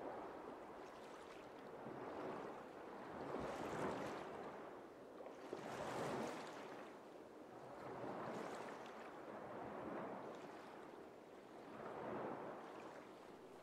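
Small sea waves washing onto a pebble beach, the sound swelling and easing off about every two seconds.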